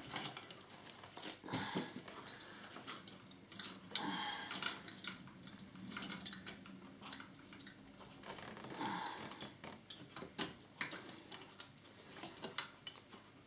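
Scattered clicks, taps and scrapes of metal and plastic as a CPU cooler is handled and clipped onto its mounting bracket on the motherboard.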